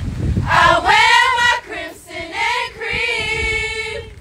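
A group of women singing loudly together in unison, in three phrases; the pitch slides in the first, and the last is a long held note.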